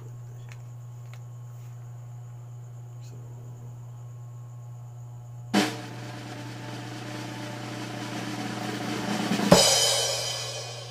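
Drum roll sound effect: a sudden hit starts a snare roll that grows steadily louder for about four seconds and ends in a cymbal crash that rings out and fades near the end. A steady low hum runs underneath.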